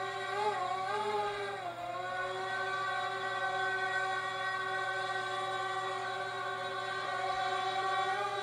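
Background choral music with long held notes; the pitch wavers and dips between about half a second and two seconds in, then holds steady.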